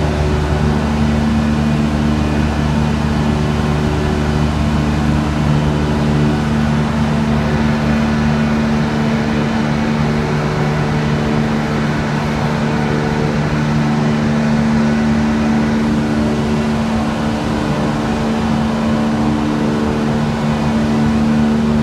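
Sugar mill machinery running: a loud, steady industrial hum with several steady low tones. It comes from the drive-powered cane mills and the chain-and-slat bagasse carrier in operation.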